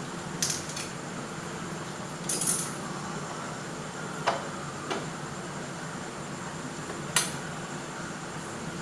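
A handful of short, separate clinks and knocks of kitchenware, about five spread over several seconds with the sharpest one near the end, over a steady low household hum.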